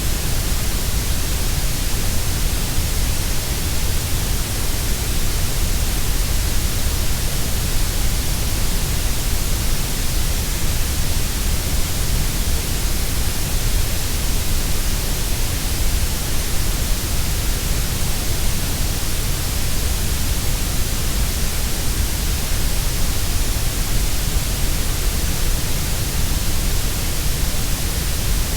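Steady synthetic grey noise: an even, unpitched hiss that never changes, fuller in the deep bass and the treble than in the middle.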